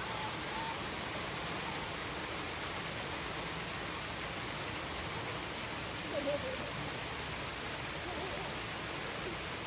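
Steady rushing noise with no rhythm or change, and a brief faint voice-like sound about six seconds in.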